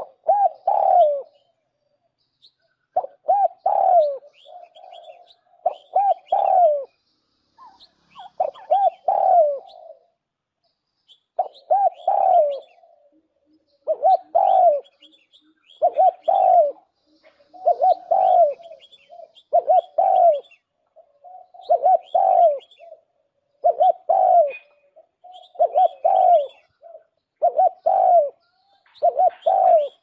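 Spotted dove cooing its song: a short phrase of two or three low coos, repeated about every two seconds.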